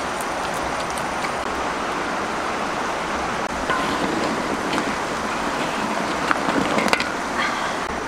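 A large wok of duck eggs boiling hard over a wood fire: a steady hiss of boiling water, with a few light clicks and knocks near the end.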